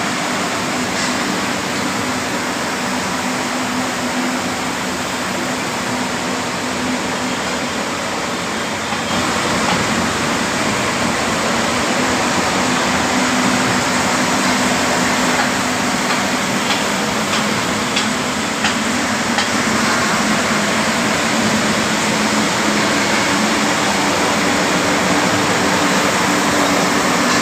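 Steady hiss of water being sprayed, over the steady hum of a motor; it grows a little louder about nine seconds in.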